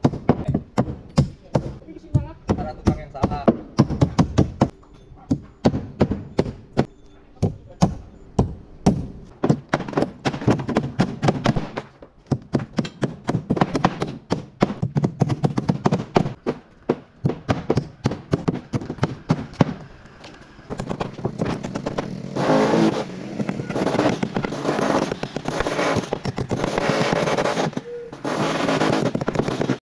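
Wood being struck over and over, sharp knocks about two or three a second, typical of hand tool work such as a mallet or hammer on wood. From about 21 seconds in, the knocks give way to a denser, continuous rasping scrape.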